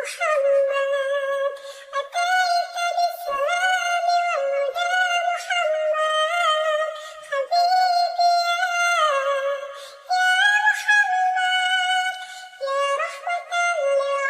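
High-pitched singing voice carrying a melody of held notes and short slides, with brief breaks about two seconds in, around eight and ten seconds, and near the end.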